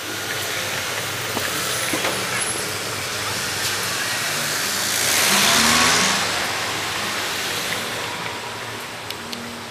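Street traffic: a motor vehicle drives past close by, its rushing tyre-and-engine noise swelling to a peak a little past halfway and then fading, over a steady hum of traffic.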